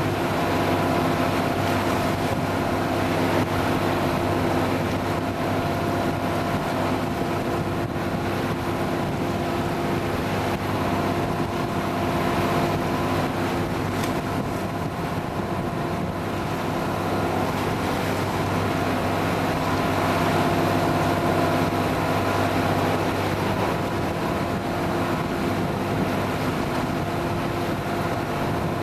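Boat motor running steadily under way, with wind and water noise over it.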